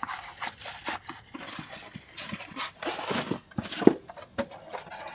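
Packaging being handled: a plastic bag rustling, and cardboard and a polystyrene foam packing piece scraping and creaking as the foam top is lifted off the boxed 3D printer, with a sharp knock a little before four seconds in.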